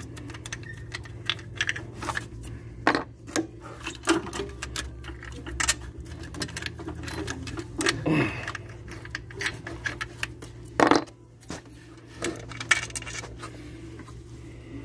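Loose metal bolts and hand tools clinking and clattering as they are handled and set down, with one louder clank about eleven seconds in, over a steady low hum.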